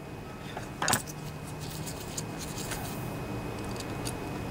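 Small carburetor parts being handled and fitted back together: one sharp metallic click about a second in, then faint light ticks, over a steady low hum.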